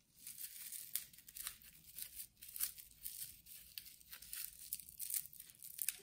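Paint-loaded bubble wrap wrapped around the fingers, tapped again and again onto paper: a faint run of soft, irregular dabs with plastic crinkling, a few a second.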